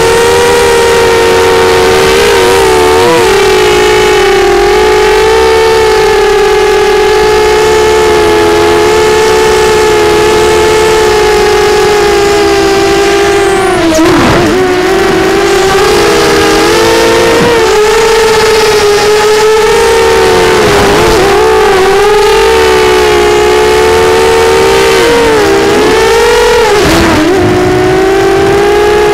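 Whine of a small FPV quadcopter's four Sunnysky 2204 2300KV brushless motors spinning Gemfan 6045 propellers, heard through the onboard camera's microphone as a steady high hum of several close pitches. The pitch swoops down and back up about halfway through and twice more near the end as the throttle is chopped and punched during acro flips and rolls.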